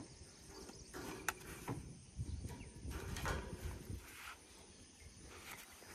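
Faint outdoor ambience: insects chirring steadily in the background, with a few soft knocks and rustles from rope and metal lattice tower sections being handled, one sharper knock about a second in.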